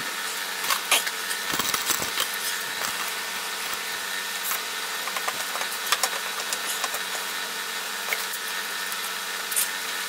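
Bar clamps being tightened on a laminated glue-up, in sped-up audio: quick, irregular clicks and knocks of clamp handles, jaws and metal bars over a steady hum.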